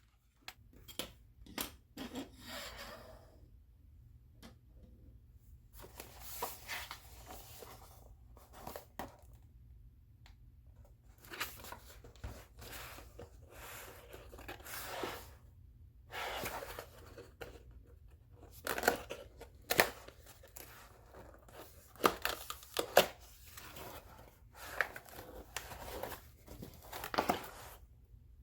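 Packaging being torn open and crinkled by hand, in repeated rustling bouts with sharp clicks and knocks between them.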